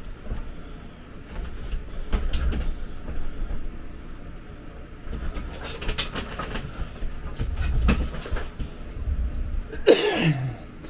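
A man's footsteps, knocks and rustling as he moves about a small room and comes up to the camera, over a low rumble. Near the end comes a drawn-out vocal sound falling in pitch.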